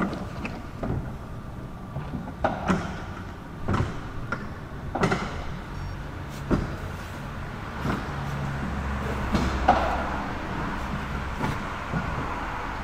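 Motorised sectional garage door opening: a steady low motor hum with clunks and rattles every second or so as the panels run along the tracks.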